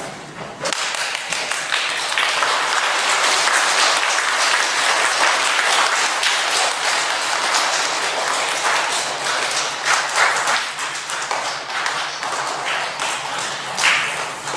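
An audience of children applauding, a dense mass of hand claps that swells about half a second in and holds loud, then cuts off abruptly at the end.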